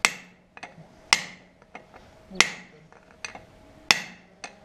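Steel hammer blows on a cold chisel set against a tractor's front-wheel hub nut, driving the nut round to tighten it after a wheel-bearing replacement. There are four heavy metallic strikes about a second and a half apart, each ringing briefly, with lighter taps between them.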